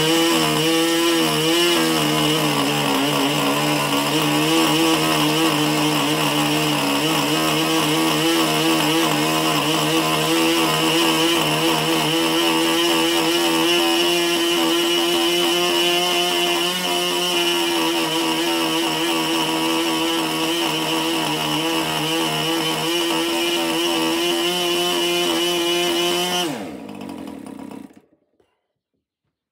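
MDS 40 two-stroke model glow engine running at full speed, wavering in pitch for the first couple of seconds and then holding a steady note; its needle valve is badly adjusted, by the owner's account. Near the end the engine is shut off: the note drops in pitch and dies within about a second.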